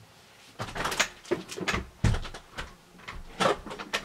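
A string of short, irregular knocks and rustles, like small objects being handled and set down on a desk, with the loudest knock about two seconds in.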